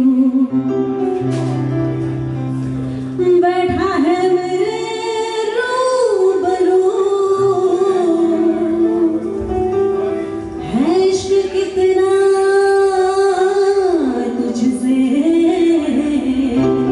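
A woman singing live with long, wavering held notes, accompanied by keyboard, electric guitar and cajon.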